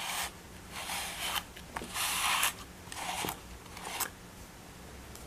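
Wire-pin slicker brush stroking through a cat's fur: about five separate brushing strokes, roughly a second apart, the one about two seconds in the loudest.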